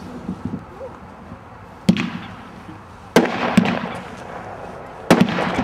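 A Legend 500-gram consumer fireworks cake, Expendables, firing: three sharp reports about two, three and five seconds in, the later ones followed by crackling.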